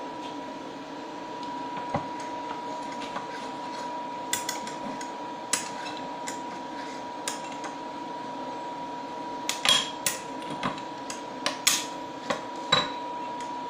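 A small tin-antimony-silver solder loaf ingot being tipped and knocked out of its graphite mould: scattered light metallic clinks and taps, coming thicker and louder in the last few seconds. Under them runs a steady faint hiss with a thin high tone.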